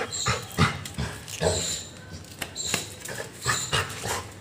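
Excited pet dog being greeted and petted, giving several short, high squeaky whines amid scuffling and patting sounds.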